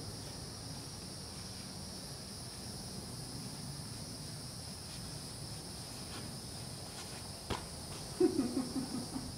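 Steady chorus of insects, an even high-pitched drone. Near the end there is one sharp click, followed by a short, louder burst of pitched sound.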